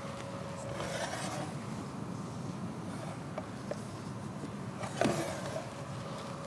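Soft rubbing and rustling of gloved hands folding thin sheets of baklava dough on a platter, with a sharper brushing scrape about five seconds in.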